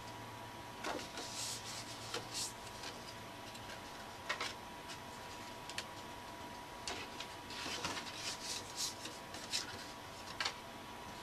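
Cardstock tags being handled and folded along their score lines: scattered short paper rustles and scrapes, busiest in the second half, over a faint steady high hum.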